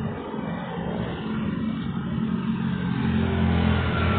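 Motor vehicle engine running, with a steady low hum that gets louder about three seconds in.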